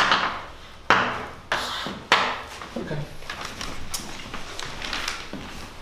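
Chalk knocking and scratching on a blackboard: a few sharp taps in the first two seconds and another about four seconds in, with fainter scraping between them.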